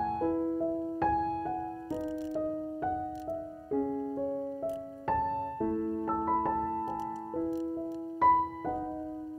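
Background piano music: a gentle melody of struck notes, each ringing and fading.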